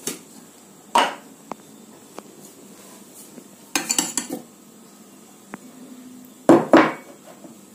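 Clinks and clatters of a stainless-steel mixer-grinder jar, its lid and small bowls being handled as banana slices are tipped into the jar: a knock about a second in, a cluster around four seconds in, and a louder double clatter near the end.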